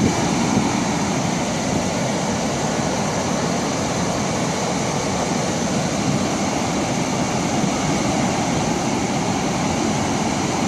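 Floodwater pouring through a concrete dam's open spillway gates and churning below: a steady rushing of water with no break.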